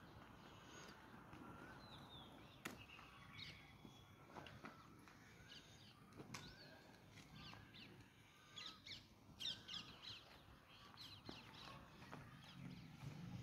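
Faint bird calls and short chirps against near silence, thickest about nine seconds in.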